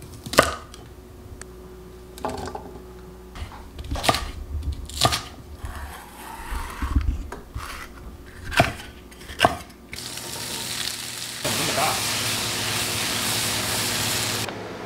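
A cleaver chopping vegetables on a wooden cutting board: a handful of sharp, separate chops. From about ten seconds in, asparagus and green pepper sizzle steadily in a hot wok, growing louder soon after.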